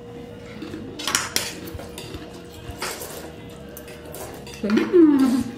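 Metal forks clinking and scraping on ceramic plates and bowls while spaghetti is eaten, with a few sharp clinks. Near the end, a short vocal sound falling in pitch.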